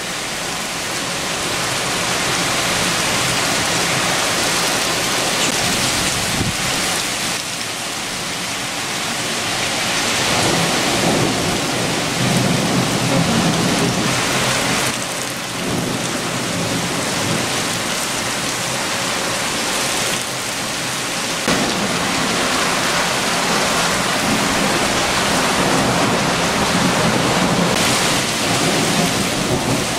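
Heavy rain falling steadily on leafy trees and grass, a dense steady hiss. Low thunder rumbles swell in behind it about ten seconds in and again through the second half.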